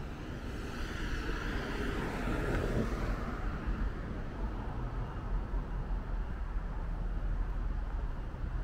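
A car passing on the road, its tyre and engine noise swelling from about a second in and fading away a couple of seconds later, over a steady low rumble of road traffic.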